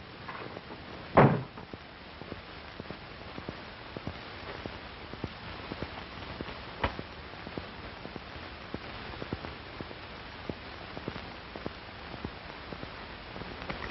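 A door shutting once, about a second in. Then the steady hiss of an old optical film soundtrack, with scattered faint clicks and pops.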